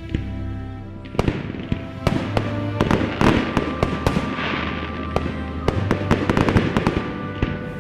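Fireworks going off in a rapid string of sharp bangs and crackles, thickest in the second half, over music with sustained notes.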